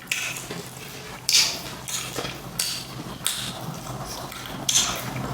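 Close-up crunching and chewing of crispy fried chicken, a run of crackly bites about one every second.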